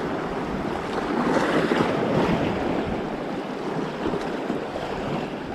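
Sea waves washing against shoreline rocks, a steady surf that swells a little about a second in and then eases, with some wind on the microphone.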